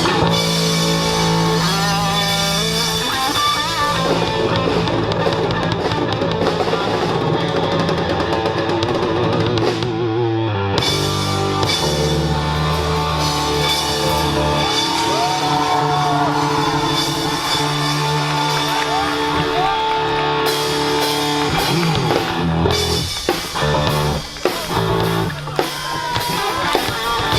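Live rock band playing a medley: guitars, bass and drum kit, loud and continuous.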